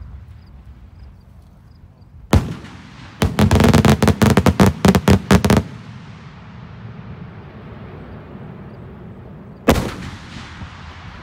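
Daytime aerial firework canister shell: one sharp bang as it breaks, then a rapid string of more than a dozen loud salute reports over about two seconds. Another single sharp bang comes near the end.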